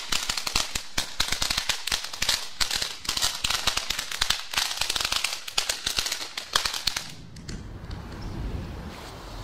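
Ground fountain firework spraying sparks and crackling: a dense, rapid run of sharp pops that dies away about seven seconds in. A low wind rumble on the microphone is left after it.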